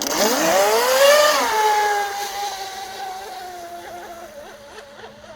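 A 3D-printed RC raceboat's motor speeding up: its whine rises in pitch for about a second and a half, then drops back a little and holds steady while it slowly fades.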